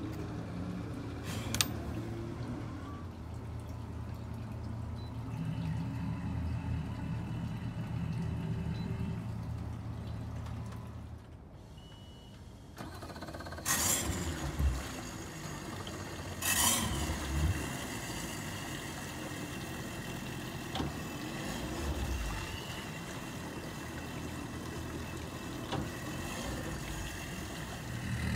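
Mercury 300 hp Verado 4.6-litre V8 outboard engines starting and idling at about 620 rpm, a steady low hum. Partway through the hum drops away briefly, then comes back with a few sharp loud bursts.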